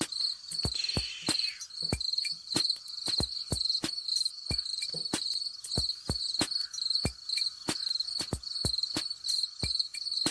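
Crickets chirping steadily in a night ambience, with sharp clicks about three times a second throughout.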